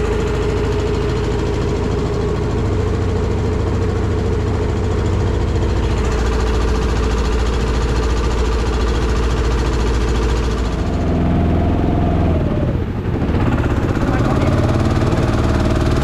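Small outboard motor on an aluminium boat running steadily under way. About eleven seconds in its note shifts and the sound dips briefly, then picks back up.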